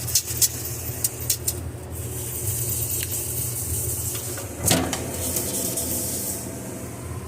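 A magic eraser scrubbing a fridge surface. It starts as short rubbing strokes and then turns into continuous rubbing, with a single knock about halfway through, over a steady low hum.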